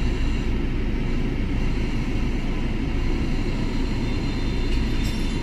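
Hyundai i20 engine idling steadily, a low rumble heard from inside the cabin.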